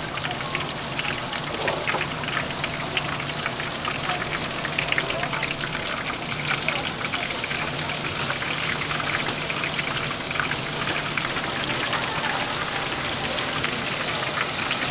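Hot oil crackling and sizzling steadily as battered tempura deep-fries in a street-stall fryer, with a low steady hum underneath.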